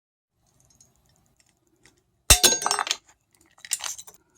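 Hand pop-rivet tool setting a rivet: about two seconds in, a single sharp metallic snap with a brief ring as the rivet mandrel breaks off. A softer metallic clatter follows near the end.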